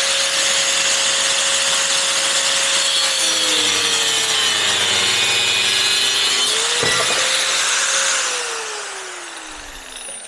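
Angle grinder with a cutting disc cutting through a metal plate, with a loud hiss of the cut over the motor's steady whine. The motor's note dips for a few seconds in the middle and recovers. It is switched off about eight seconds in and its pitch falls as it spins down.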